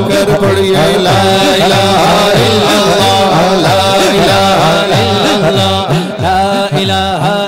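Male voices chanting the name 'Allah' over and over in a fast rhythm, about twice a second, amplified through a sound system, over a steady held tone.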